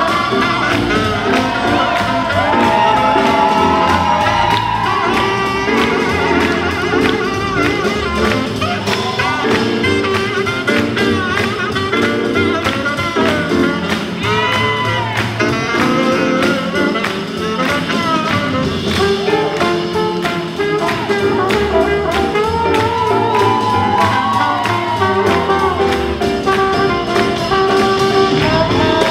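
Live swing band with brass and drums playing a jazz tune with a steady swing beat.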